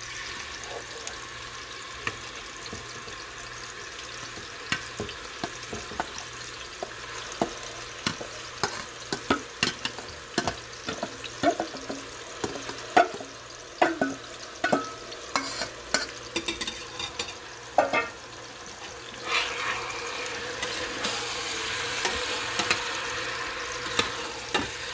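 Chopped red onions sizzling in hot cooking oil in a stainless steel pot, with a metal spoon clinking and scraping against the steel bowl and pot as they are tipped in and stirred. The sizzle grows louder after about nineteen seconds.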